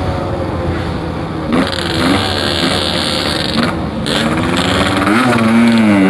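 Yamaha RX-King's 135cc two-stroke single-cylinder engine running on the road, its pitch falling and then rising again near the end as the throttle is opened. A hiss sits over it between about one and a half and four seconds in.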